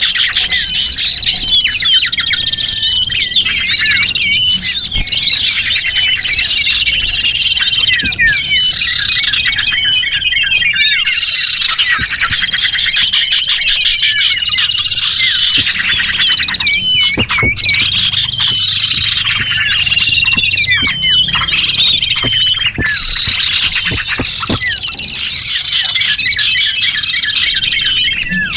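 Dense chorus of many small songbirds chirping and twittering, calls overlapping without a break, as played in a bird-lure (pikat) recording to draw small birds in.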